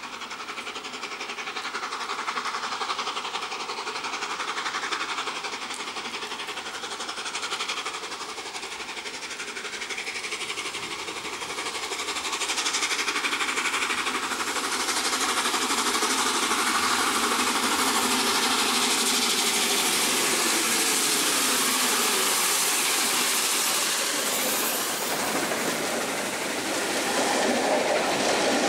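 Peppercorn A1 Pacific steam locomotive Tornado, a three-cylinder 4-6-2, approaching and passing with its train: steam and rail noise that grows louder about halfway through as it draws close. It ends with the coaches rolling past with a clickety-clack of wheels on rail joints.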